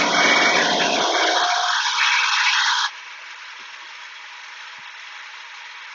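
Shopsmith headstock motor running the grinding wheel, just switched on: loud for the first three seconds, then dropping sharply to a quieter, steady running sound.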